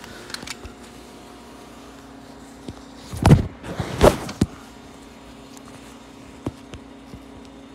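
Handling noise from the phone doing the recording: two loud knocks and rubs about three and four seconds in, then a few light clicks, over a steady low hum.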